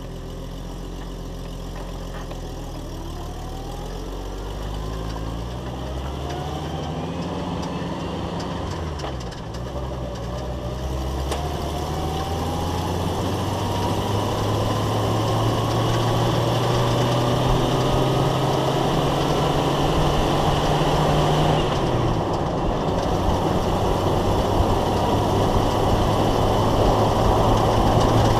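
Jeep Wrangler accelerating on the road, heard from under the body. The engine rises in pitch and drops back twice at gear changes, about a third of the way in and again about three quarters in. A whine rises with speed, and road noise grows steadily louder.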